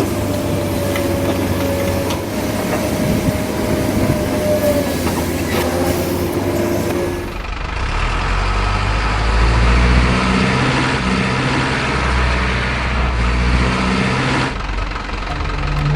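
Motor and gear whine of a radio-controlled model truck and excavator, a steady, slightly wavering whine. About halfway through it cuts to a deeper rumble that steps up and down in pitch.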